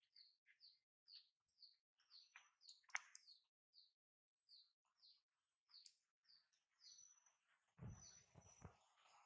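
A small bird calling over and over: short, high, falling chirps, about two a second. Low thuds come in near the end.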